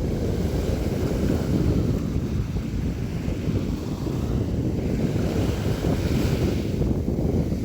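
Sea waves breaking and washing in: a steady low rumble of surf, with a hissing wash that swells near the end.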